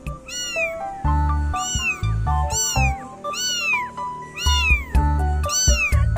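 A cat meowing six times, each meow rising then falling in pitch, about a second apart, over background music with a steady beat.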